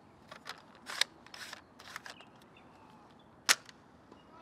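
Plastic clicks and snaps of a spring-loaded toy foam-plane launcher pistol being loaded and fired, with one sharp snap about three and a half seconds in that sends the foam glider off.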